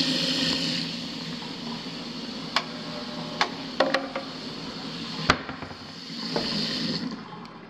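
Cold water running from the faucet into the kitchen sink drain while the food waste disposal motor hums steadily without spinning: the disposal is jammed (locked up). A few sharp knocks come in the middle.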